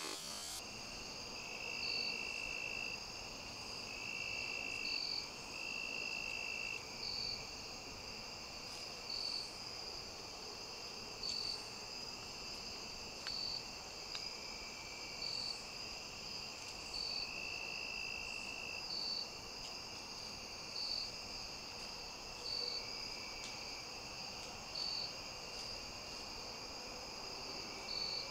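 Chorus of crickets and other insects: a steady high-pitched trill, with a short chirp about every two seconds and an occasional longer, lower buzzing note.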